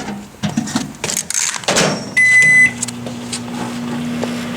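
A few knocks and clatter, then a microwave oven's single half-second beep, after which the microwave starts and runs with a steady low hum.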